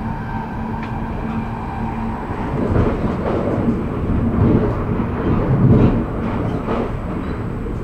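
Commuter train running along the track, heard from inside the carriage: a steady rumble of wheels on rail, with louder, uneven rattling and clatter from about three to seven seconds in.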